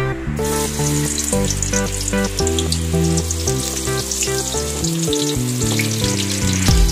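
Food frying in a hot pan, a steady crackling sizzle that starts about half a second in, over background music.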